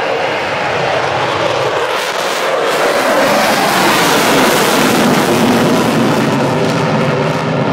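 Fighter jet flying past: loud jet engine noise swells over the first few seconds and is loudest around the middle, with its pitch dropping as it goes by.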